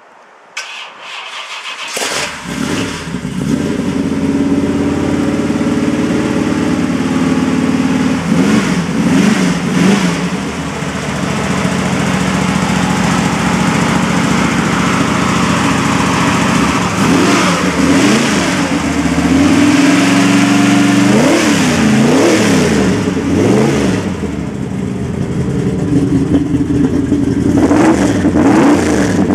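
1972 Chevy pro street pickup's carbureted V8 cranking and catching about two seconds in, then idling and revved in short blips several times, its pitch rising and falling with each blip.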